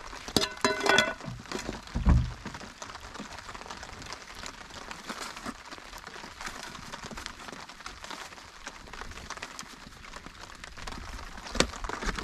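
Steady patter of rain. A brief pitched sound comes about half a second in, a dull thump a couple of seconds in, and a sharp knock near the end.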